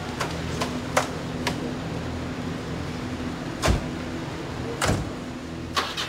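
Dodge truck's cab doors being opened and slammed shut: a few light clicks, then two heavy slams a little over a second apart and a further knock near the end, over a steady low hum.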